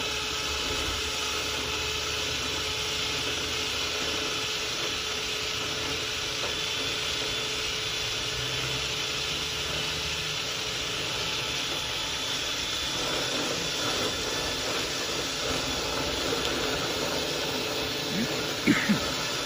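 Vent cleaning equipment's motor running steadily with rushing air as a dryer vent duct is cleaned out. A couple of sharp knocks near the end.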